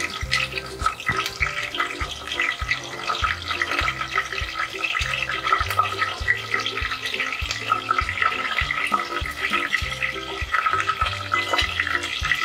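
Garlic cloves, curry leaves and asafoetida sizzling and crackling steadily in hot oil for a tadka. Background music with a bass line plays under it.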